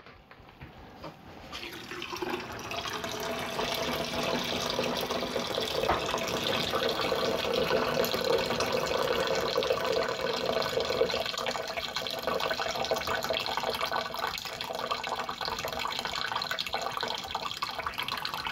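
Liquid pouring in a steady stream into a plastic brewing bucket of grain during sparging. It starts about two seconds in.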